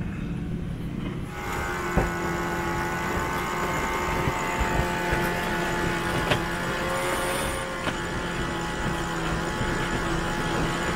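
Low wind and water rumble, then about a second in a motor starts running steadily with several fixed tones, with a few light knocks over it.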